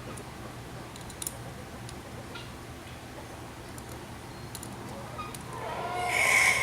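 A few light clicks and ticks over a steady low hum, then near the end poultry start calling loudly.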